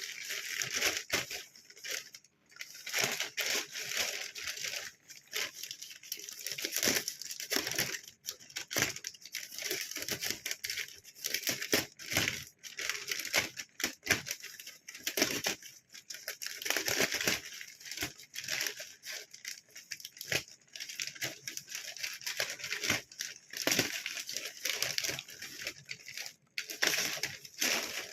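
Parcel packaging being handled and opened by hand: continuous crinkling and rustling of wrapping, with repeated sharp crackles and tearing.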